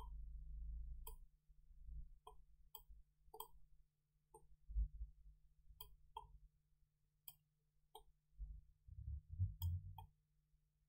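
Faint, sharp computer-mouse clicks, about a dozen spaced irregularly, over a low steady hum. A few dull low thuds fall near the middle and near the end.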